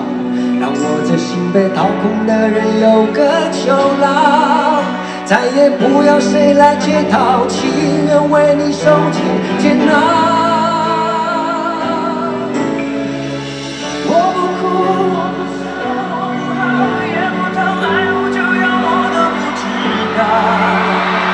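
Live pop ballad sung by two male voices with wavering held notes over acoustic and electric guitar and band accompaniment. Crowd cheering swells near the end.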